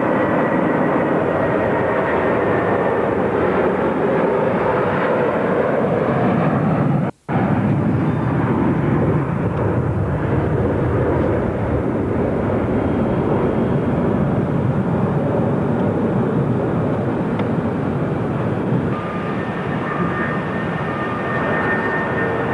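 Jet engines of a Boeing 747-400 at takeoff power, its four Rolls-Royce RB211 turbofans giving a loud, steady rushing roar as it accelerates down the runway and lifts off. The sound breaks off sharply for a split second about seven seconds in, and eases a little near the end.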